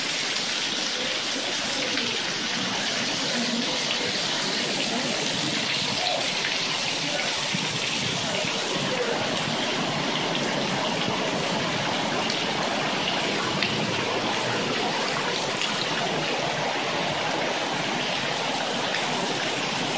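Heavy rain mixed with hail pouring down steadily: a dense, even hiss of drops and hailstones striking the ground and rooftops.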